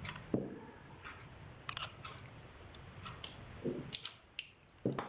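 Irregular light metallic clicks and taps from the small parts of a Leatherman Charge TTi multitool being handled and pressed together during reassembly, about seven in all, a few with a dull knock under them.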